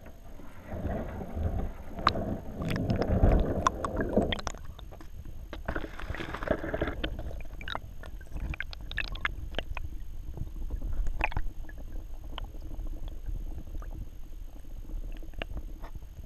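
Muffled water rushing and gurgling heard from an underwater camera beneath a moving kayak, with two louder surges in the first half and scattered small clicks and knocks throughout.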